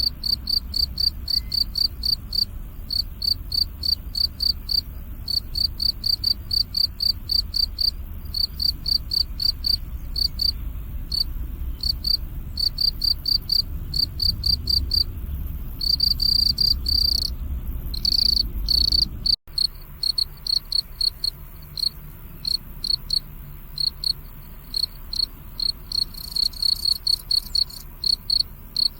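Crickets chirping: quick trains of high-pitched pulses, broken by short pauses, with a few longer unbroken trills. A low background rumble underneath stops abruptly about two-thirds of the way through, where the recording cuts.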